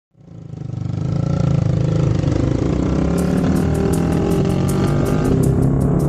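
A small 100cc single-cylinder motorcycle engine running while riding, fading in over the first second. About three seconds in, background music with a steady ticking beat comes in over it.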